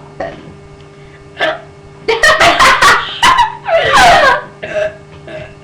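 A loud, drawn-out human burp lasting about two seconds, starting about two seconds in: raspy and rattling at first, then ending in a voiced tone that falls in pitch.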